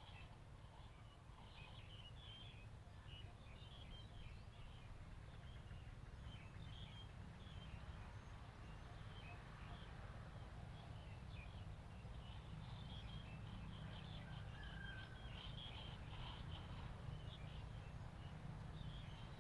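Faint outdoor ambience: many short, high bird chirps scattered over a low steady rumble, with one brief whistled note about fifteen seconds in.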